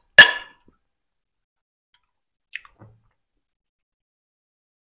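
A steel serving spoon clinks once against a ceramic plate, a sharp hit with a brief ring, then a faint light tick about two and a half seconds in.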